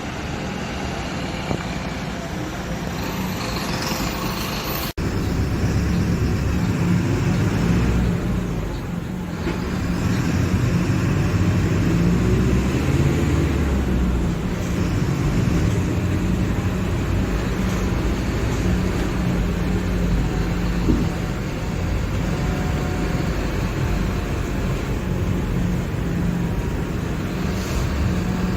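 Mercedes-Benz OF-1721 BlueTec 5 bus's diesel engine running steadily. About five seconds in the sound cuts out for an instant, then comes back louder.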